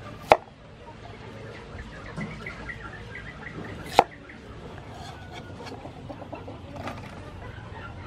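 Two sharp knocks, about four seconds apart, of a cleaver chopping down through carrot pieces onto a thick wooden chopping block. Chickens cluck in the background.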